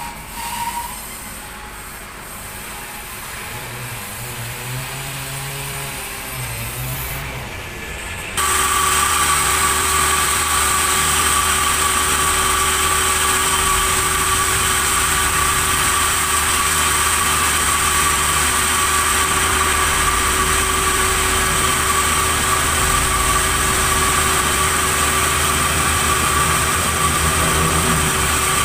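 Sawmill machinery running: a low machine hum for about eight seconds, then an abrupt step up to a loud, steady high whine of a saw running at speed.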